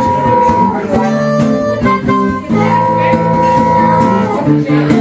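Harmonica in a neck rack played over a strummed acoustic guitar, as a solo instrumental passage. Long held harmonica notes come near the start and again about three seconds in, over steady chords.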